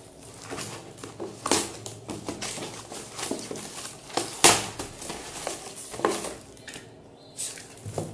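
Cardboard box being opened and handled: flaps and sides rustling and scraping, with a few sharp knocks and taps of the box.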